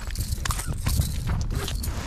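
A freshly landed walleye flopping on the ice, making irregular slaps and knocks.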